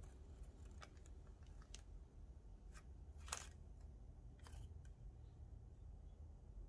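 Near silence with faint handling noises: soft rustles and small clicks as fingers press strips of dough onto cookie rounds on a parchment-lined baking tray. There is one sharper click a little over three seconds in, over a low steady hum.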